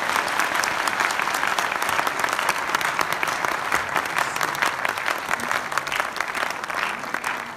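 Large audience applauding, many hands clapping together in a steady stream.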